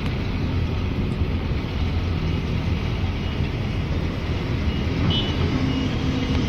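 Steady traffic noise: motor vehicles running along a city street, a continuous low rumble.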